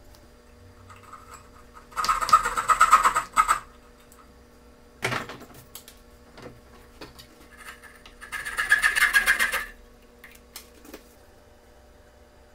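Two bursts of rapid rasping of a hand tool working wood, each about a second and a half long, with a sharp knock between them and a few light clicks.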